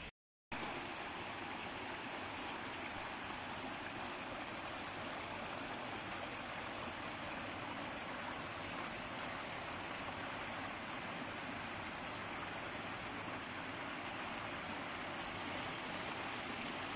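Small garden stream spilling over a low rock cascade: a steady rush of running water that comes in after a brief moment of silence at the start.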